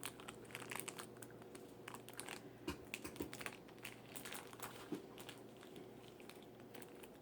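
Faint crinkling and scattered light clicks of plastic toy packaging and small doll pieces being handled.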